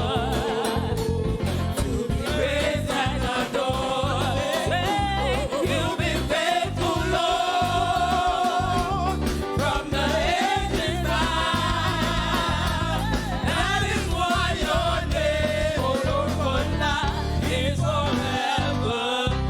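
Gospel praise singing with voices in wavering melody over a band with heavy bass and steady percussion.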